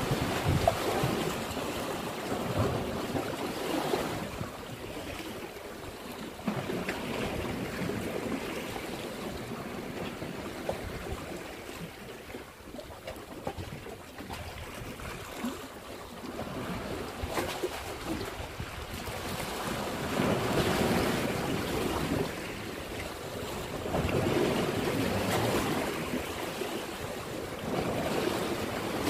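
Sea waves washing and splashing in the foreground, surging louder several times, with wind on the microphone.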